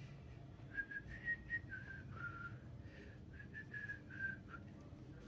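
A person whistling a short tune: about a dozen brief notes stepping up and down in pitch, over a faint low hum.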